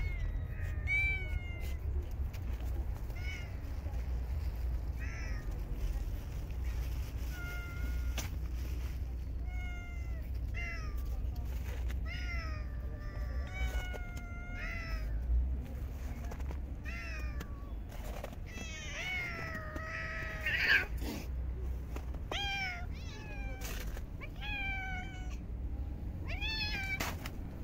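Stray cats meowing for food, short calls one after another throughout, with a longer, louder call about twenty seconds in. A steady low rumble lies underneath.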